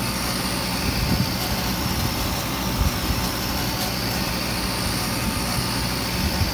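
Laser engraver running an engraving job: a steady machine drone with a low hum.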